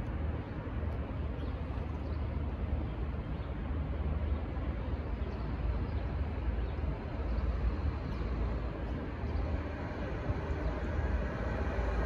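Steady low rumble of passing road vehicles, with no distinct strokes or tones.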